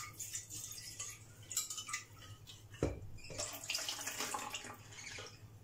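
Yogurt thinned with lukewarm water, scraped with a spatula out of a plastic pot and poured into a glass mixing bowl: irregular splashing and scraping, with a knock about three seconds in.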